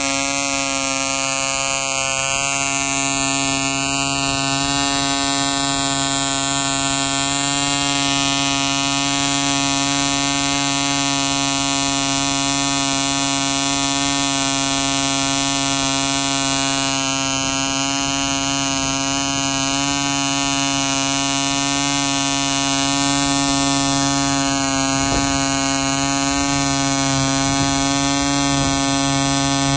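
E.D. Bee Mk. 2 1 cc two-stroke model diesel engine running steadily on a test stand with an 8x4 propeller, holding a constant high speed with an even buzz. It is being run rich and under-compressed because its piston and liner fit is still very tight.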